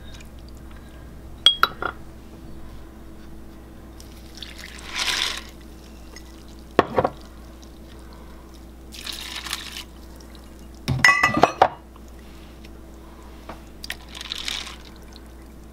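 Milk and other liquids poured from glass jars into a pan of dry elbow macaroni, shredded cheese and seasonings: three short pours, with sharp clinks of glass jars and a spoon against the pan between them, the busiest run of clinks about eleven seconds in.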